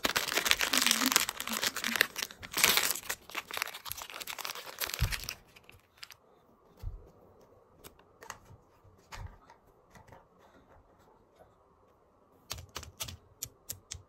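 Thin plastic candy wrapper crinkling and tearing as it is pulled open by hand, dense for about five seconds and then stopping. After that, scattered light clicks and taps, coming quicker near the end.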